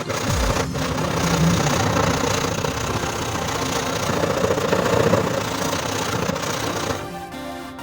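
A motor running with a dense, rough noise, which cuts off about seven seconds in, leaving background music.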